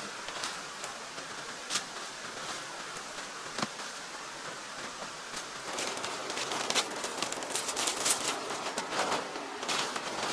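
Light clicks and knocks, sparse at first and coming thick and fast from about six seconds in, over a steady outdoor hiss.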